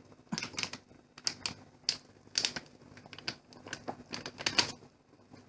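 Packet of cod soup mix being handled and torn open: a run of irregular sharp crinkles and clicks that stops shortly before the end.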